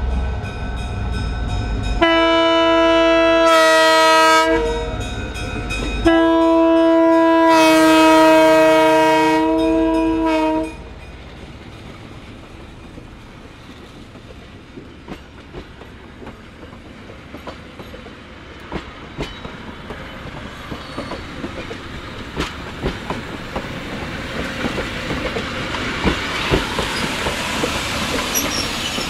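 The Nebraska Zephyr's diesel locomotive sounds its air horn, a chord blown in a few blasts; the last and longest cuts off about ten seconds in. Then the stainless-steel passenger cars roll past, their wheels clicking over the rail joints, and the clicking gets louder near the end as the cars come close.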